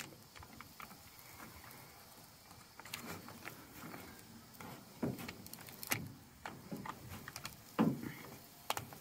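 Paper masking stencil rustling and crinkling as a plastic squeegee smooths it onto a metal truck door: soft scattered rustles and scrapes, a few sharper crinkles near the middle and end.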